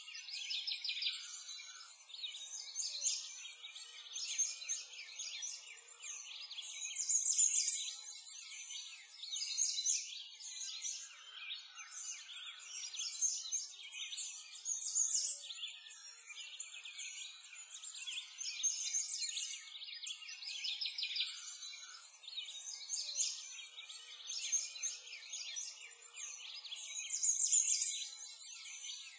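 A dense chorus of many small birds chirping and twittering without pause, all high-pitched, swelling and fading every few seconds.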